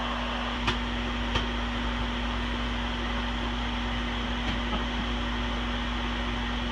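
Microwave oven running with a steady hum, with a few sparse popcorn pops: two sharp pops in the first second and a half, fainter ones later. The pops come far apart, as microwave popcorn does when it is nearly done.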